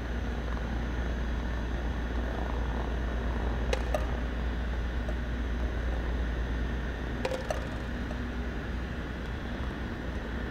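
Steady low hum throughout, with a few sharp clicks of golf balls being putted on a hardwood floor: one about four seconds in and two close together about seven seconds in.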